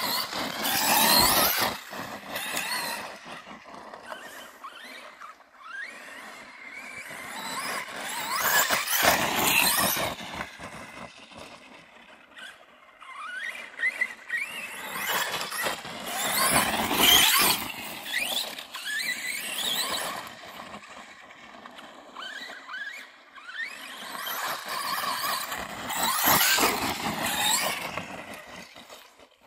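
Arrma Kraton 4S RC truck's brushless motor whining high as it makes repeated fast runs, the pitch rising and falling with each burst of throttle and braking. The whine swells in about four loud passes roughly eight seconds apart.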